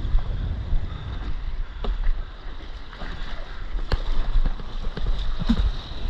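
Stand-up paddleboard being paddled through small surf: wind rumbling on the action camera's microphone over water sloshing and slapping against the board. Three sharp knocks come through, about two, four and five and a half seconds in.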